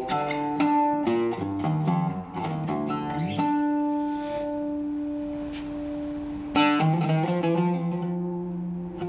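Oud with a cedar soundboard, maple-and-wenge back and Pyramid strings, played solo. A run of plucked notes leads into one note sustained for about three seconds. Then a strong low note sounds about two-thirds of the way in and more plucked notes follow.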